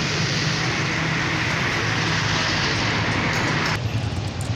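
Electric arc welding: a steady crackling hiss from the arc over a low machine hum, the arc stopping abruptly a little before the end.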